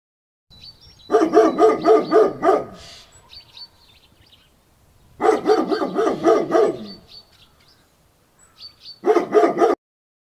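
A dog barking in three quick runs of rapid barks, about six barks a second, the last run short.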